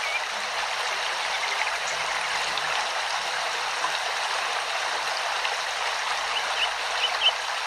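Steady rushing noise like flowing water, even throughout, with a few faint short high chirps near the end.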